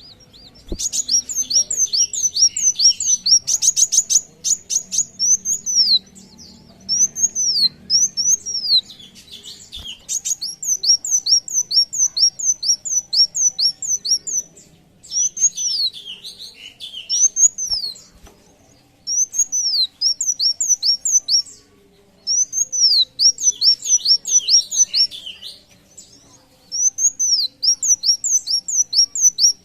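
A small songbird singing: phrases of quick, high, arched notes, about four a second, each phrase lasting a few seconds with short pauses between. A brief run of rapid clicking notes comes about three seconds in.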